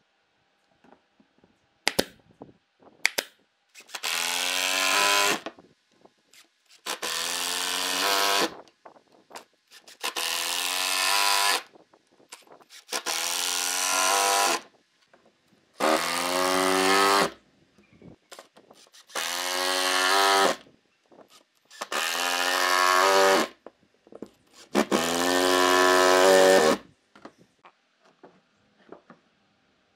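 Cordless impact driver driving wood screws into pine, eight runs of about a second and a half each, roughly every three seconds, its pitch dropping through each run. A few sharp clicks come shortly before the first run.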